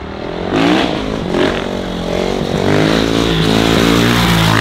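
Dirt bike engine accelerating hard while ridden on a wheelie. Its pitch climbs and drops back a few times as it shifts up through the gears, then it holds high revs and grows louder as the bike comes closer.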